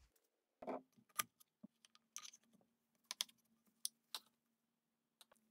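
Faint, irregular light clicks and taps of hands handling the plastic housing of an Echo CS-3000 top-handle chainsaw: about a dozen short clicks spread over a few seconds.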